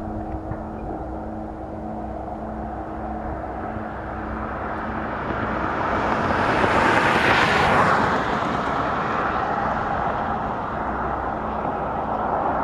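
A steady low hum and rumble, which the recordist blames on something vibrating through his home. A vehicle passes, its rush swelling to its loudest about seven seconds in and then fading.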